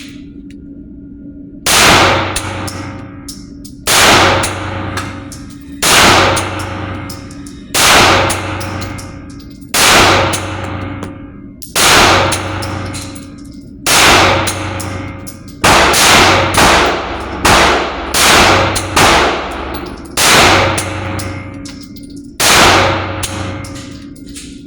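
Pistol shots from a Polymer80 Glock-pattern build being broken in with Blazer aluminum-cased ammunition, each with a ringing echo. There are about sixteen single shots, spaced about two seconds apart at first and coming faster and unevenly in the second half.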